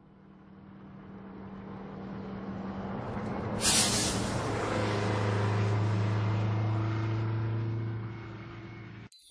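A swell of hiss-like noise that rises from silence over steady low held tones. A sudden bright crash-like hit comes about three and a half seconds in, rings on, and fades away near the end. It is the intro ahead of the song.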